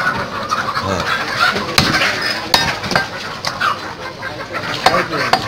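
A butcher's cleaver chopping beef on a wooden stump block: several sharp chops at irregular intervals, over a busy background of short chattering calls.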